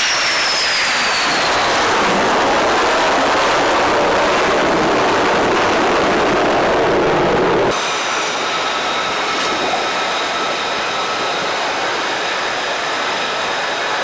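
Jet engines on a carrier flight deck: a loud, steady rush with a falling high whine at the start, just after a catapult launch. About eight seconds in it cuts abruptly to a slightly quieter, steady turbine whine with several high tones.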